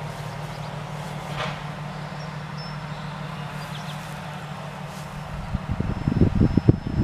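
A steady low mechanical hum. From about five and a half seconds in, irregular wind buffets hit the microphone and grow louder.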